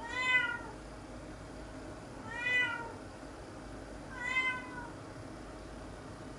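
Domestic cat meowing three times, each call about half a second long and rising then falling in pitch, roughly two seconds apart.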